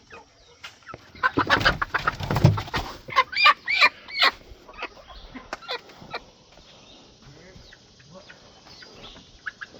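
Chickens clucking, with a run of loud, short calls about three to four seconds in, then quieter scattered clucks.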